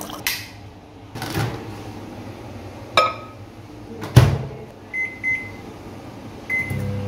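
Microwave oven: a sharp click, then the door shut with a loud knock, three short beeps as the one-minute timer is keyed in, and the oven starting up with a steady hum near the end.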